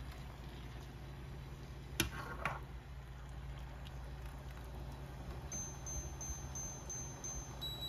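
Two light, ringing clinks about two seconds in, half a second apart, over a steady low hum. Near the end a faint high tone pulses several times.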